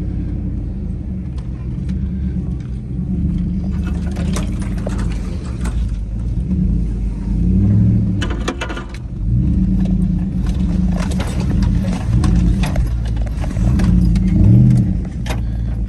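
Yukon SUV's engine heard from inside the cabin while driving slowly over a rough off-road trail, its pitch rising and falling several times with the throttle, with scattered knocks and rattles from the body over the bumps.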